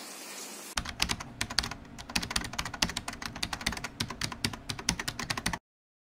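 Computer keyboard typing sound effect: rapid, irregular key clicks that start about a second in and stop abruptly, followed by dead silence.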